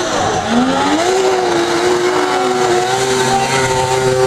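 Snowmobile two-stroke engine accelerating at full throttle while skimming across water: its pitch climbs in the first second, then holds steady and high.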